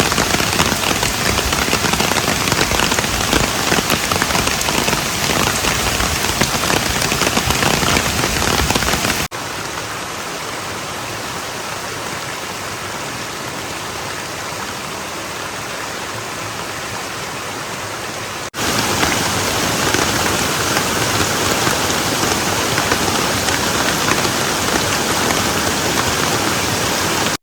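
Steady heavy rain falling and pattering on surfaces, in three edited stretches; the middle stretch, from about 9 to 18 seconds, is quieter and has less low rumble.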